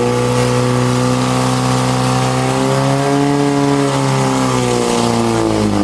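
Portable fire pump's engine running hard at high revs, its pitch held steady, then easing off slightly near the end.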